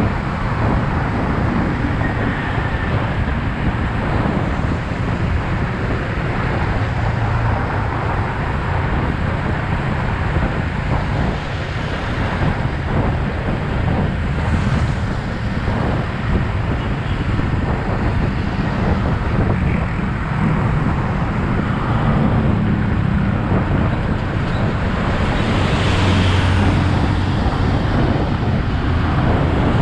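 Wind noise buffeting the microphone over the Yamaha XSR 155's 155 cc single-cylinder four-stroke engine running under way, its low note shifting a few times.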